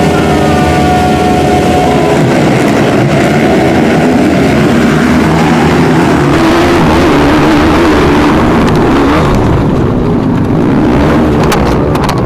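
A pack of 155cc-class trail motorcycles revving hard and accelerating together off a race start. The engines then run on as a dense, continuous snarl at high revs, with a few sharp knocks near the end.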